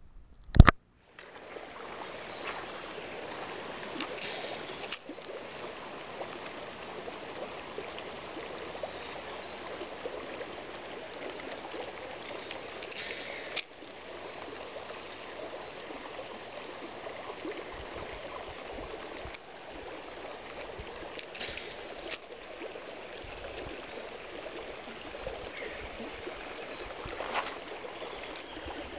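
A sharp loud click just after the start, then a steady wash of moving water, sea water churning among shore rocks, that drops out briefly three times.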